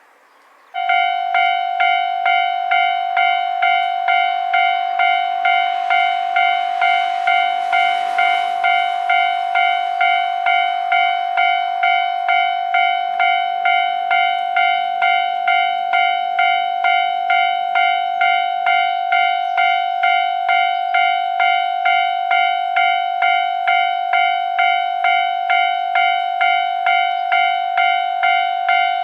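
Japanese railway level crossing warning bell starting up about a second in, then ringing its steady 'kan-kan' at about two strikes a second, signalling that a train is approaching. A rushing noise swells and fades under it around six to ten seconds in.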